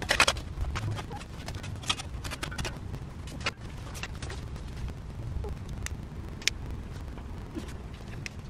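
Metal shovel scraping and chopping into hard, gravelly soil, loudest right at the start, followed by scattered scrapes and clinks.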